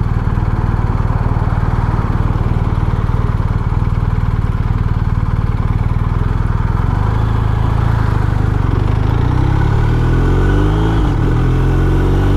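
BMW R1250RT's boxer-twin engine running at a steady low idle, then revving up as the motorcycle pulls away, the pitch climbing in steps near the end as it shifts up through the clutchless quick shifter.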